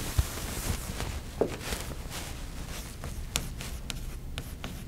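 Chalk on a blackboard. A soft rubbing in the first second as a word is wiped off, then a quick run of chalk taps and scratches in the second half as new letters are written.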